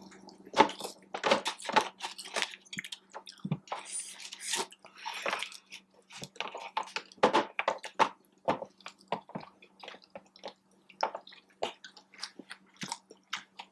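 Close-miked wet chewing and lip-smacking of people eating sauced boneless chicken wings, in many short irregular smacks, over a faint steady hum.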